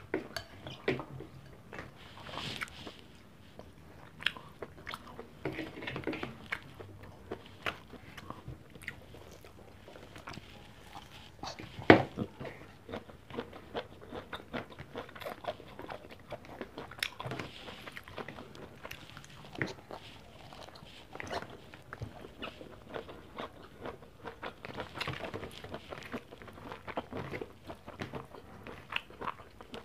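Close-miked eating sounds of a meal of rice, fried pork chop and string beans: chewing and biting with crunching and many small clicks. One sharp knock about twelve seconds in.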